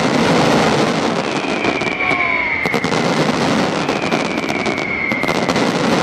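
Fireworks crackling densely with many sharp pops from low-level effects, without deep booms. A high whistle, falling slowly in pitch, sounds three times over the crackle, about two and a half seconds apart.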